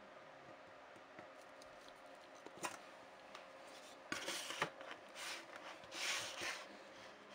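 Light handwork noises: a sharp click, then from about four seconds in a few seconds of short scraping and rustling strokes, over a faint steady hum.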